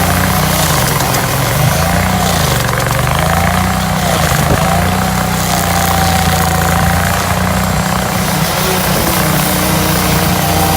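Hydraulic stump grinder's engine running under load, its pitch sagging and recovering twice in the first few seconds as it bogs, then holding steady.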